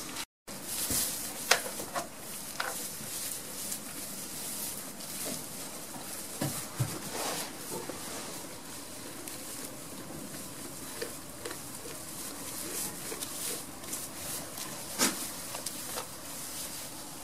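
Goats rustling through straw bedding and tugging at hay, a steady dry rustle with scattered light knocks, two of them sharper about a second and a half in and near the end.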